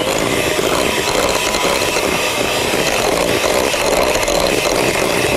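Handheld electric mixer running steadily, its beaters whipping cake batter of butter, sugar and eggs in a bowl.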